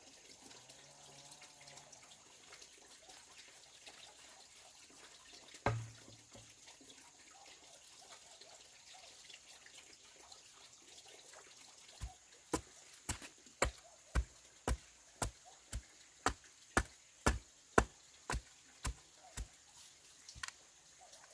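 A regular series of sharp knocks or taps, about two a second, starting a little past halfway. One lone thud comes earlier.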